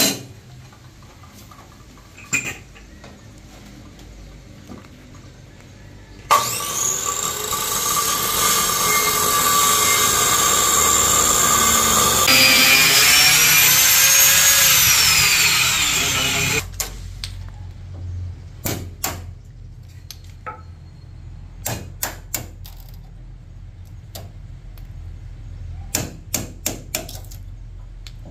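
Electric angle grinder starting about six seconds in and cutting into a hardwood board for several seconds. Its pitch rises as it spins free, then it winds down after switch-off. A hammer then strikes a chisel again and again in short groups of knocks, chopping out the wood between the cuts to form a notch.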